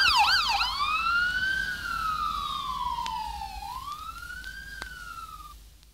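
Electronic police siren in a fast yelp that about half a second in changes to a slow wail, falling, rising again, then fading out.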